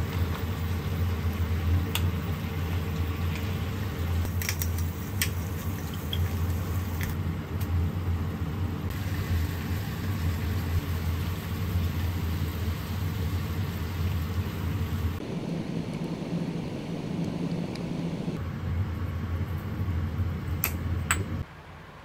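Chicken breast pieces cooking in a square frying pan on a gas stove, under a steady low whir, with a few sharp clicks of chopsticks against the pan. The sound drops away suddenly near the end.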